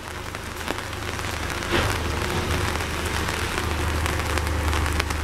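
Steady rain falling, a fairly heavy shower, with a low steady rumble underneath that grows a little stronger about two seconds in.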